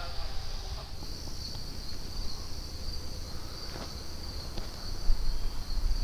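Steady chorus of insects, a continuous high-pitched buzz, over a low rumble of road traffic.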